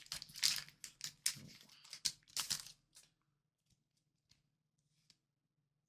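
Foil Pokémon booster pack wrapper being torn open and crinkled by hand for about three seconds, then a few faint clicks.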